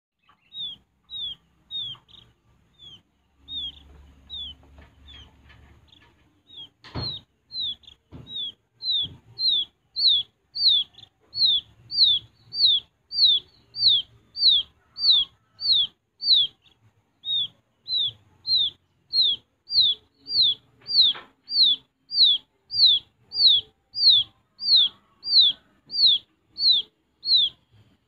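Wild quail chick peeping: a long, regular series of short, high calls, each sliding downward, about three every two seconds and louder from about ten seconds in. A sharp knock about seven seconds in.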